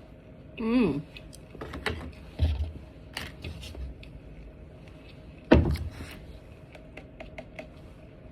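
A person eating sushi: a short wavering hummed 'mmm' about half a second in, then scattered clicks and knocks, the loudest about five and a half seconds in.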